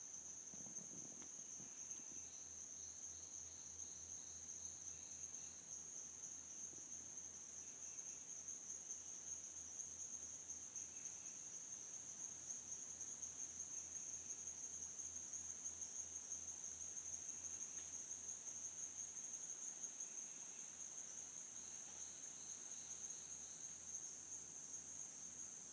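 Insect chorus: a steady, high-pitched, fast trill, with a fainter higher trill above it and a few short chirp series from another insect.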